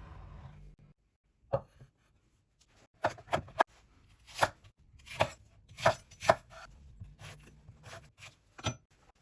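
A knife cutting vegetables on a cutting board: about ten separate chops at an uneven pace.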